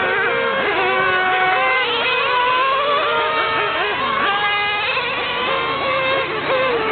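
Several 1/8-scale GP nitro RC car engines, small two-stroke glow engines, running at the same time, their high-pitched notes rising and falling as the cars accelerate and brake around the track.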